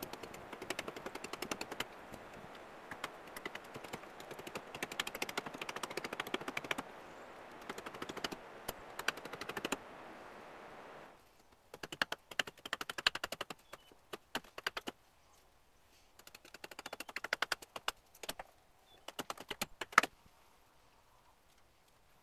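Small carving hatchet chopping a green trembling aspen spoon blank on a stump chopping block, in quick runs of light strokes with short pauses between. There is one harder blow about twenty seconds in.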